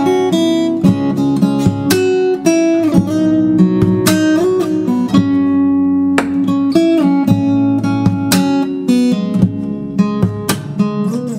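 Background music: an acoustic guitar piece of plucked notes and chords ringing over a bass line.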